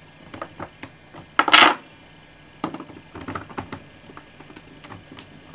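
Small Torx screwdriver working a screw out of the underside of an Apple keyboard's plastic case: light clicks and scrapes of metal on plastic, with one louder short clatter about a second and a half in.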